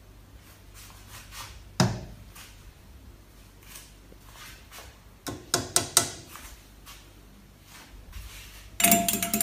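Scattered knocks and clicks on a hard surface: a single knock about two seconds in, a quick run of sharp clicks around five to six seconds, and a louder, denser rattle near the end.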